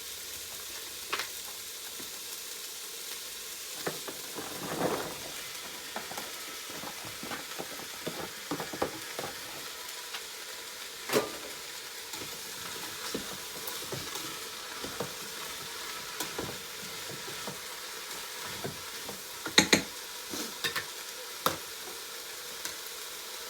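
Sliced onions and zucchini sizzling in hot oil in a multicooker pot on the sauté setting, with a spoon stirring and knocking against the pot now and then; the sharpest knocks come about eleven seconds in and twice around twenty seconds in.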